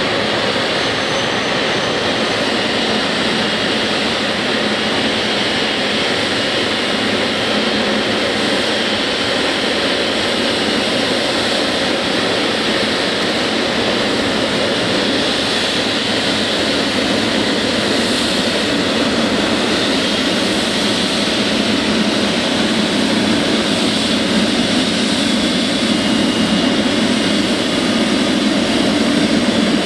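Jet airliner engines: a loud, steady rushing roar with a faint high whine, growing slowly louder toward the end as the aircraft draws nearer or spools up.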